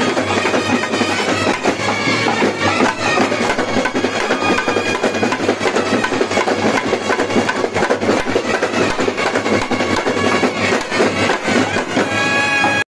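Live band-set music: a row of snare drums and a barrel drum beating fast and dense under trumpets playing a melody.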